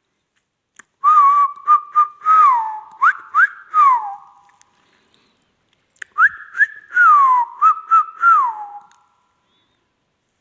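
Ring-necked parakeet whistling: two phrases of clear notes with quick upward and downward slides, each about three seconds long, the second starting about a second and a half after the first ends.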